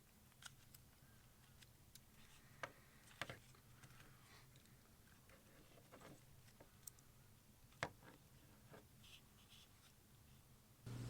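Near silence with a few faint, scattered clicks and taps, the strongest about eight seconds in.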